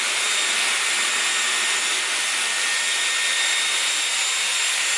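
Dyson Airwrap hair styler running: a steady rush of blown air with a thin, high motor whine.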